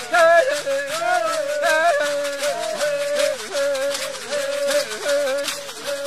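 Background music: a wavering melody over a steady rattling beat.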